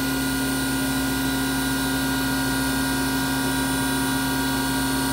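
Spindle of a Star SR-32J CNC Swiss-type lathe spinning at a steady speed of about 2,000 rpm, a steady motor whine made of several even tones.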